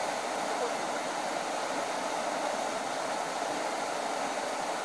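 Steady rushing of a small river rapid, water pouring over and around rocks.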